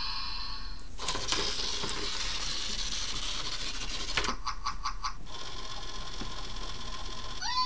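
Zhu Zhu Pets robotic toy hamster running around its plastic track: a steady small-motor whir with clicks as it knocks against the walls, a quick pulsing rattle about halfway through, and a short electronic squeak near the end.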